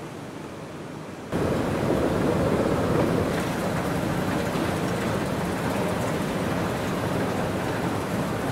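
Steady rushing background noise of a large, empty indoor space, stepping up sharply in loudness about a second in and then holding even.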